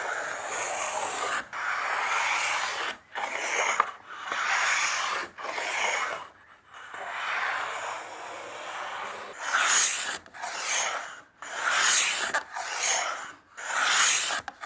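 Wooden round moulding plane, the number 4, pushed stroke after stroke along a wooden board, each stroke a rasping cut that lifts a shaving as it deepens a rounded groove. The strokes are longer at first, then shorter and quicker, about one a second, in the second half.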